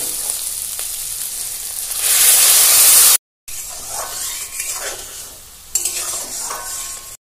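Spice paste sizzling in hot oil in a pan as a metal spatula stirs it; about two seconds in, the sizzle jumps up loudly as hot water is poured in. After a brief break, the spatula scrapes and stirs through the thin, bubbling gravy.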